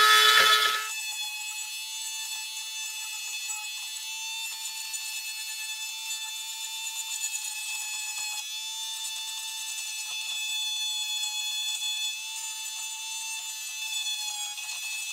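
Handheld rotary tool with a small ball burr running at high speed and carving the wooden rifle stock: a steady high-pitched whine, louder for about the first second, then even with slight flutters as the bit cuts.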